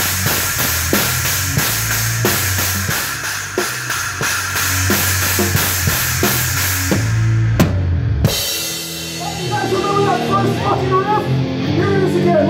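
A live heavy rock band heard close up from the drum kit: kick drum, snare and cymbals pound with the band. About seven seconds in the full band breaks off on a couple of accented hits. An electric guitar then plays a bending lead line over sustained bass notes without the cymbals, and the drum hits start back in near the end.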